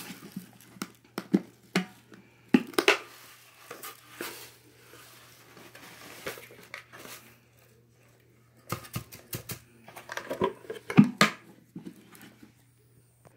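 Dry rice being tipped out of clear plastic containers onto a carpet, with the plastic clattering and knocking in irregular bursts and a short quiet gap about eight seconds in.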